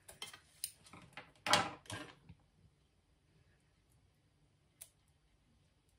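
Scissors snipping away rotten tissue from a phalaenopsis orchid's dried roots: a quick run of snips and rustles in the first two seconds, then a single click near five seconds.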